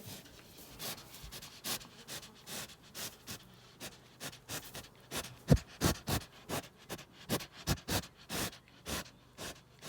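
An animal eating: irregular sharp crunching clicks, a few a second, with some sniffing.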